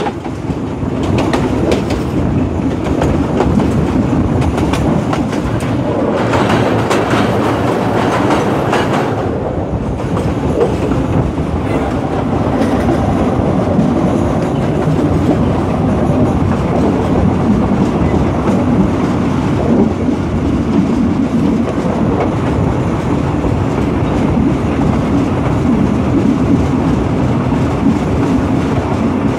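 Diesel locomotive of a Thai local passenger train running steadily along the track: a continuous loud engine and running noise, with wheels clacking over rail joints.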